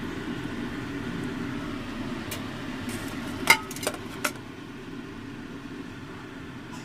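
Utensil clinking against a cooking pot three times about halfway through, the first clink the loudest with a short ring, over a steady low rumble.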